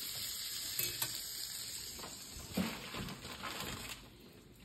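Butter sizzling quietly in a hot cast-iron skillet, a steady hiss with a few light knocks from handling.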